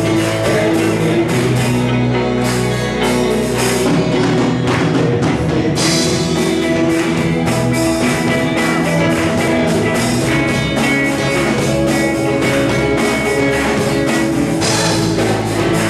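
Band music with guitar and drum kit playing a steady beat.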